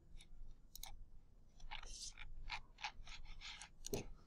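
Faint clicks of a computer mouse, with a run of quick crackly taps and rustles in between, about halfway through.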